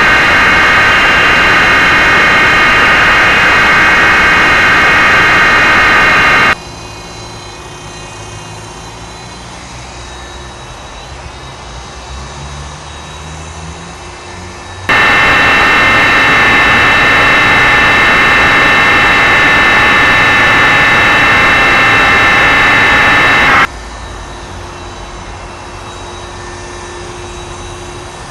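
Small electric motors and rotor blades of a cheap toy RC helicopter, giving a loud, steady high-pitched whine. The whine cuts out abruptly about six seconds in, returns abruptly midway, and cuts out again near the end, leaving a much quieter low hum.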